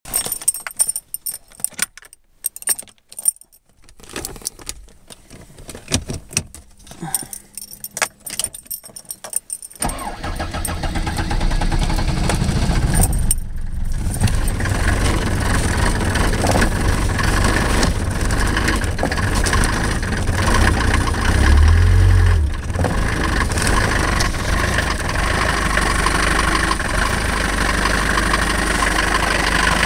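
Mercedes 190's OM601 four-cylinder diesel being started from cold at about −15 °C. Scattered clicks and handling noise come first; the engine catches about ten seconds in and settles into a steady cold diesel idle, with a brief low thump a little past the middle.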